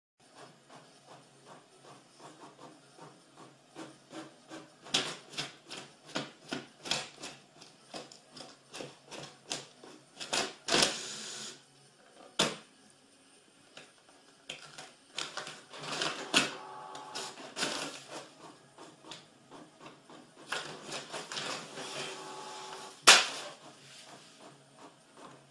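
Desktop printer at work: a long run of sharp clicks and clacks, about two a second, with stretches of motor whirr in between and one louder clack near the end.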